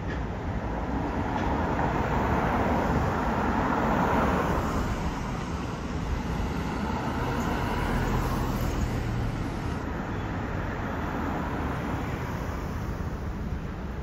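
Street traffic: vehicles passing, swelling about two to five seconds in and again around eight seconds in, when a faint low hum is heard.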